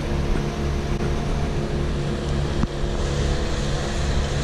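Steady drone of an engine running at a constant speed, with a low, even hum that does not rise or fall.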